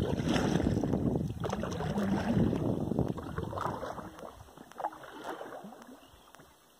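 Kayak on the water: water sloshing and splashing around the hull with wind rumbling on the microphone and small knocks, loud for the first three seconds or so, then fading to faint water sounds.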